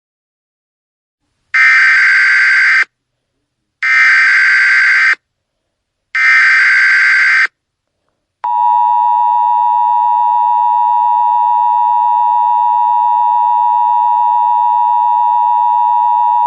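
Emergency Alert System header: three identical bursts of SAME digital data tones, each a little over a second long with about a second between them. About eight seconds in comes the steady two-tone EAS attention signal.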